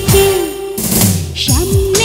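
Bangla film song music, an instrumental stretch: drum hits that fall in pitch under a held melody note, with a hissing wash about a second in.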